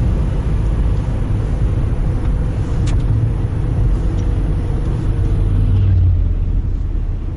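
Car cabin noise while driving: a steady low rumble of engine and tyres on the road, with a single click about three seconds in.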